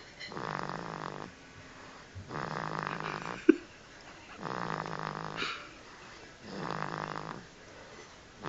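Baby boy snoring in his sleep with a funny snore: a buzzing snore about every two seconds, four in all, each lasting about a second. A brief sharp pop about halfway through is the loudest sound.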